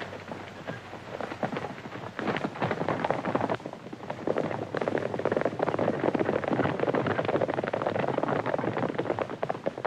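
Hoofbeats of a group of horses galloping on a dirt track, a dense clattering patter that grows louder about two seconds in.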